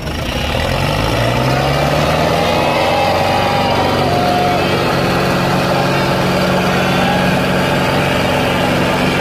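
Tractor diesel engines of a John Deere 5310 and a Sonalika 750 DI revving up as the two tractors pull against each other on a chain in a tug-of-war. The engine note rises over the first couple of seconds, then holds steady and loud under full pulling load.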